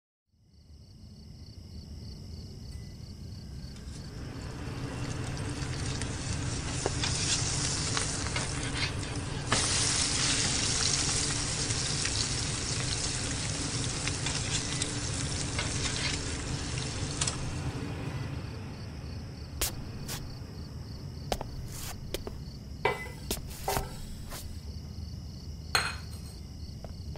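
Food sizzling as it fries in a pan, a sound effect for pan-fried dumplings cooking. The sizzle builds, grows louder about ten seconds in and eases off after about eighteen seconds. Several sharp clinks of utensils follow near the end.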